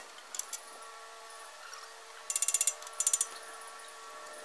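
Rapid metallic clicking from scaffolding parts being handled during dismantling, sped up with the time lapse. A fast run of about eight clicks comes about two seconds in and a shorter run follows a moment later, over a faint steady hum.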